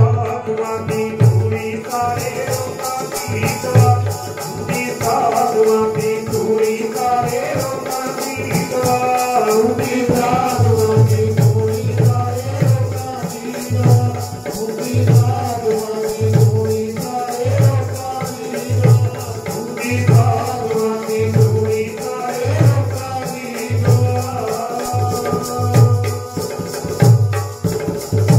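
Devotional music: a harmonium playing a held, reedy melody over a steady low drum beat of about one stroke a second and a fast, continuous jingling rattle.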